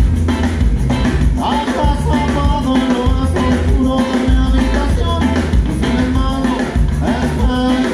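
Live ska-rock band playing at full volume through a PA, with bass, drum kit and a singing voice over a steady driving beat.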